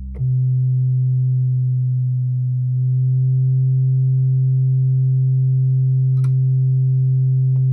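Buchla 208C oscillator sounding one steady low note, a tone close to a sine wave, held from the keyboard while its pitch is trimmed against a tuner. It starts with a click just after the beginning and grows slightly fuller about three seconds in.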